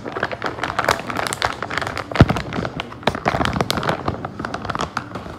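Quick clatter of clicks and knocks as treats are put into a wooden seek-a-treat dog puzzle and it is handled, with one louder knock about two seconds in.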